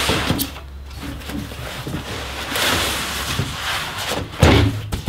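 Cardboard box flaps and white foam packing wrap rustling and crinkling as a long boxed car grille is unpacked, with a louder thump near the end.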